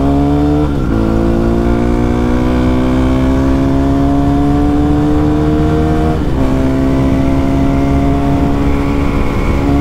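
Yamaha WR155R's single-cylinder four-stroke engine through a Radamel F4 titanium aftermarket exhaust, a bore-up version fitted to the stock engine, accelerating hard with a bassy note. The pitch climbs steadily and drops at upshifts about a second in and again about six seconds in.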